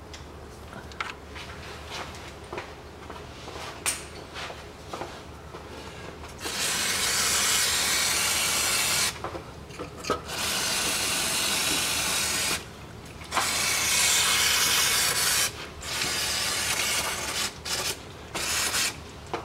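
Aerosol cleaner spray can hissing in long bursts, washing oil residue off the Haldex coupling's pump and filter area: about six seconds in come four sprays of two to three seconds each, then a few short puffs near the end. Before the spraying there are a few light clicks of a hand tool.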